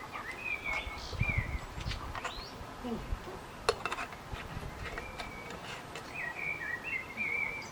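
A songbird chirping and warbling in short wavering phrases, at the start and again over the last few seconds. A few sharp clicks are heard, the loudest just under four seconds in.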